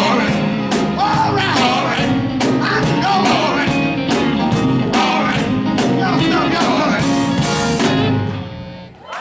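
Live gospel quartet song: voices singing over a band with guitar and a steady drum beat. The music stops about a second before the end.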